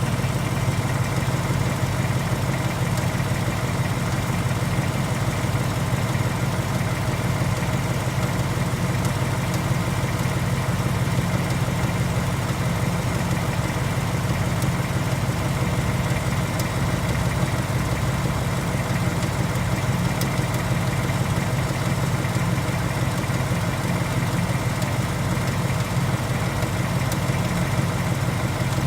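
A 2018 Ford Mustang GT's 5.0 L third-generation Coyote V8 idling steadily.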